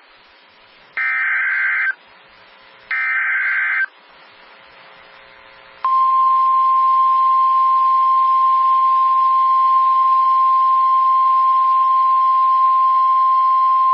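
NOAA Weather Radio Emergency Alert System signal for a flash flood warning. It opens with the last two of three SAME header data bursts, each a harsh digital buzz about a second long with short gaps between. About two seconds after the last burst, the steady single-pitch Weather Radio warning alarm tone starts and holds.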